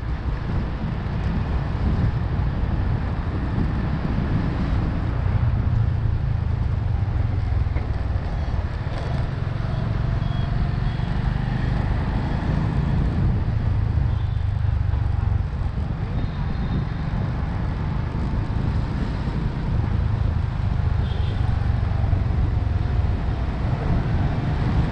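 Wind rumbling on the microphone of a camera on a moving motorbike, over the bike's running engine and surrounding street traffic. The low rumble is steady, with small swells.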